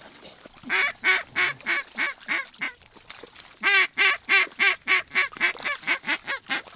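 Loud hen-mallard-style quacking in two descending runs of about ten quacks each, roughly four a second. Each run starts loudest and tapers off, the pattern of a hen mallard's decrescendo call.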